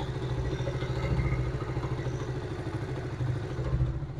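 Freshly rebuilt Honda CD70's single-cylinder four-stroke engine idling steadily and quietly, with a light tappet clatter from valve clearances deliberately left loose on the new engine parts.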